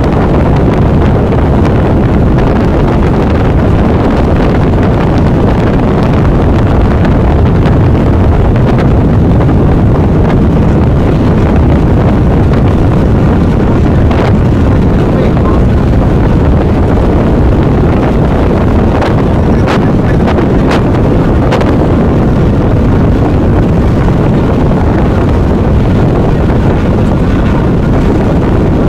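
Wind blowing across the microphone on a moving ferry, over the steady low running of the boat's engine and water.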